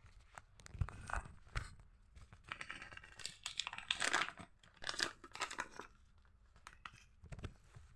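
Rustling of a packet of dried herbs and blossoms (a salad mix for birds) being opened and handled, in uneven spells that die away about six seconds in.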